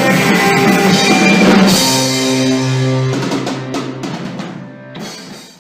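Rock band music ending: a final held chord with drum hits dies away, one last hit about five seconds in, then the track cuts off.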